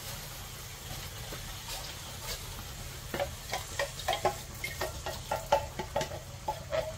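Diced chicken and pisto sizzling in a frying pan. From about three seconds in, a run of quick scrapes and knocks of stirring in the pan.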